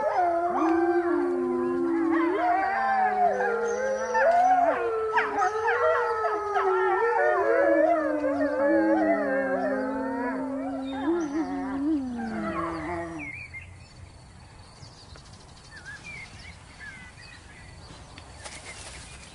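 Pack of grey wolves howling in chorus, several long overlapping howls gliding up and down in pitch. The chorus dies away about two-thirds of the way in.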